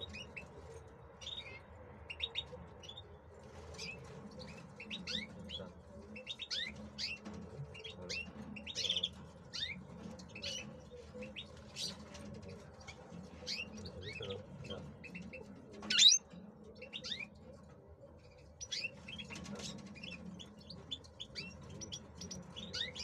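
Male European goldfinch singing: a fast, continuous twittering of short high chirps and trills, over a faint steady low hum. One sudden loud sharp sound stands out about two-thirds of the way through.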